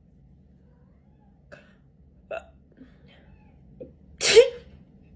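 A woman's single short, sharp sneeze about four seconds in, with a few faint short sounds before it.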